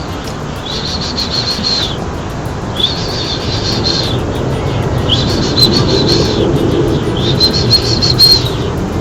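A bird calling in a series of about five trilled chirping phrases, each about a second long with rapid repeated notes, repeating at an even pace over steady background noise.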